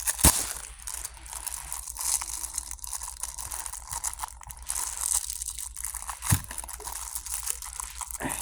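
Beyblade toy packaging being pulled and torn open by hand: continuous crinkling and crackling of the packaging, with a sharp snap just after the start and another about six seconds in.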